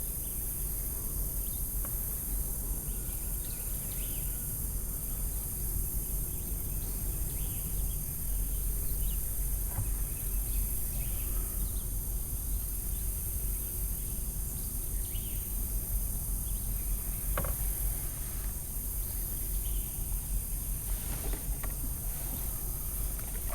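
Steady high-pitched chorus of insects over a low rumble, with a few faint clicks.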